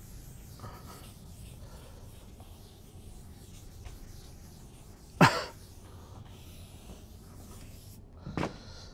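Faint chalkboard eraser wiping chalk off the board, with a short, sharp, loud sound about five seconds in and a smaller one near the end.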